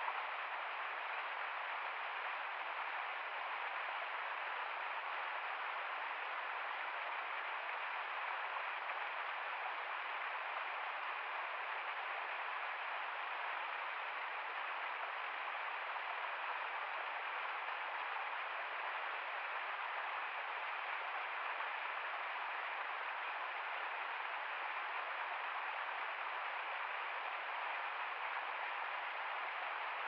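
Small cascading woodland stream: water pouring steadily down a rocky gully, an even hiss that holds level throughout.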